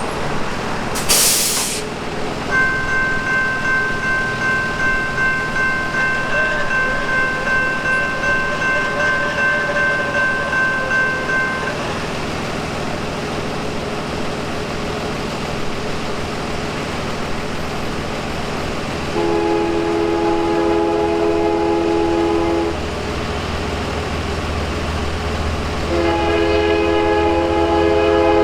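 Horn of a Union Pacific GE AC45CCTE diesel locomotive sounding a long blast about 19 seconds in and another starting about 26 seconds in, over the growing rumble of the approaching freight train. Earlier, a steady high-pitched whine holds for about nine seconds.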